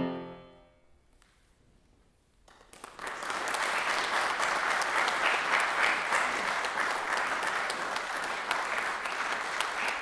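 The last chord of a tuba and piano piece fades away into a brief silence. Audience applause starts about two and a half seconds in and carries on steadily.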